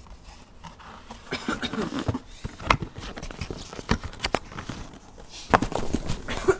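Irregular knocks, clicks and rustling of cardboard cases and firework packs being handled and moved.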